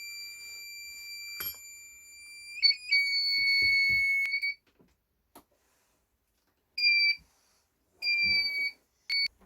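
DIY breathalyser kit's alarm buzzer sounding a steady high-pitched tone that gets louder about two and a half seconds in and cuts off a couple of seconds later, followed by three short beeps. It is a false alarm: the kit goes off all the time with no alcohol present.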